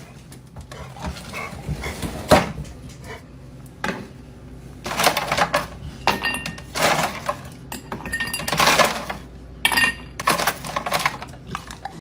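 Irregular clattering and clinking of hard objects, with some short ringing clinks, like dishware being knocked about.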